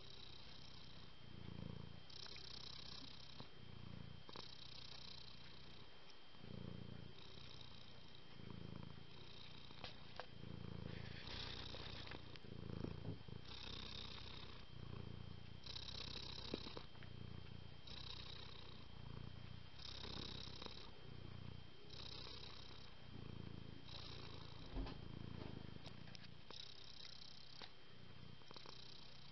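Domestic cat purring steadily and close, the purr swelling and easing with each breath about once every two seconds.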